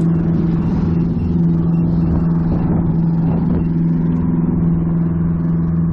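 Steady low drone of a nearby boat's engine running at a constant pitch.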